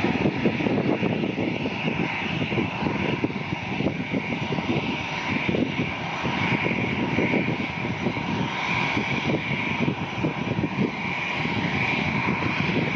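Airbus A320-family airliner's jet engines running during the landing rollout, its spoilers raised: a steady jet roar with a rough low rumble and a whine above it.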